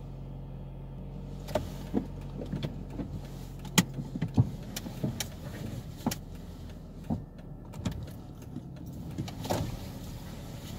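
Car engine idling, heard from inside the cabin, with irregular sharp clicks and knocks from the interior. Near the end the car starts to pull away.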